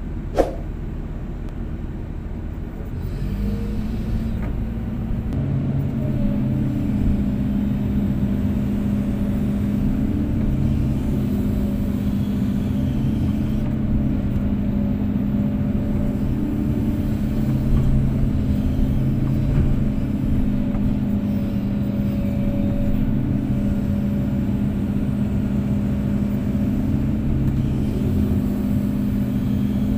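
Kobelco SK250-8 excavator's diesel engine running steadily, rising to a louder, fuller working speed a few seconds in and holding there. A single sharp knock with a brief ring sounds just after the start.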